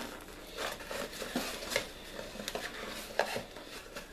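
Cardboard subscription box being handled on a table: scattered taps, scrapes and rustles, with a sharper knock about three seconds in.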